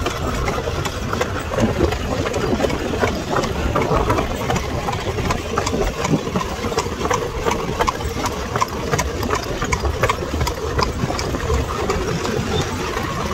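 Horse-drawn cart rolling along a paved lane: a steady rumble and rattle from the wheels and cart body, with many sharp, irregular clicks and clops from the cart and the horse's hooves.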